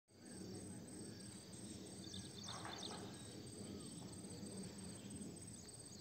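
Faint early-morning outdoor ambience: a steady high insect drone over low background noise, with a few short bird chirps and a brief call about two to three seconds in.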